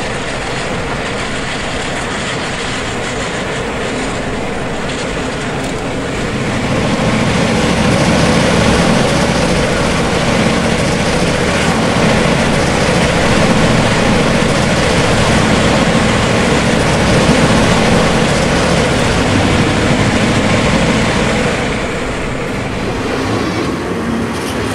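Southern Pacific diesel-hauled passenger train running along the track: a steady rumble of locomotive engines and rolling wheels, louder from about seven seconds in until near the end.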